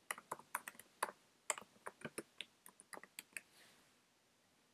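Typing on a computer keyboard: a quick run of light keystrokes entering a short line of code, stopping about three and a half seconds in.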